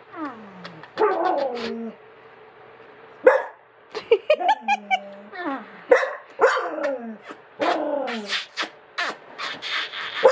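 A dog's repeated whining, yowling barks, many of them falling in pitch, coming one after another in short runs. It is a jealous dog's protest while its owner kisses another dog.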